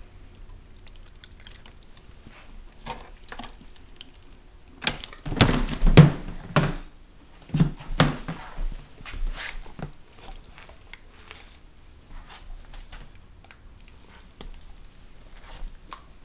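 Handling channel catfish in a plastic cooler: the fish knock and thud against the cooler's walls and each other as they are shifted and lifted, with several loud thumps about five to eight seconds in and lighter clicks and rustles around them.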